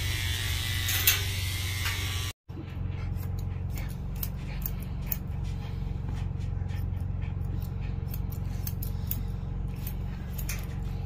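Electric dog-grooming clippers buzzing for the first couple of seconds. After a short break, grooming scissors snip in a long, irregular run of crisp cuts over a steady low hum.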